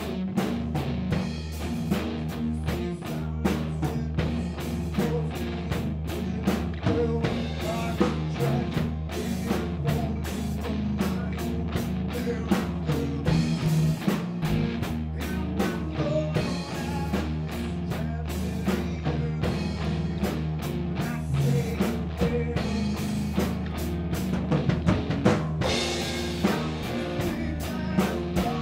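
Rock band playing a live improvised instrumental jam: drum kit keeping a steady beat under electric guitar, with a constant low bass underneath.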